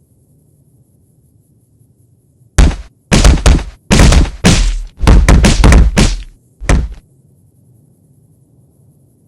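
A quick run of loud, heavy thumps, about a dozen over four seconds, starting about two and a half seconds in.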